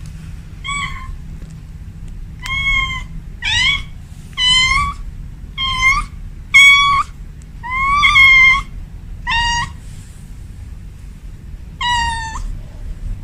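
Kitten meowing: a run of about nine short, high-pitched meows, some bending up or down in pitch, with a pause of about two seconds before the last one near the end. A low steady rumble runs underneath.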